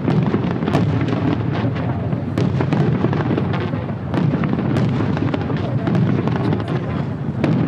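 Fireworks display: many sharp bangs and crackles, several a second, over a continuous low booming rumble from bursting shells.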